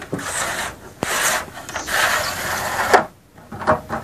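Aluminium-backed LED board strip scraping as it is slid out of an LED tube light's housing, a rubbing sound for about three seconds with a click about a second in, then a few light knocks near the end.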